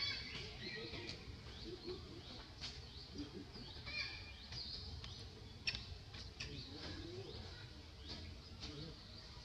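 Woodland ambience with small birds chirping in short, high, falling calls, a few sharp clicks, and a steady low background hum of outdoor noise.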